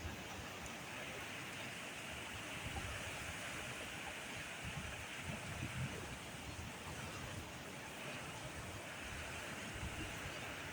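Steady rushing outdoor noise with uneven low rumbles, like wind buffeting the microphone.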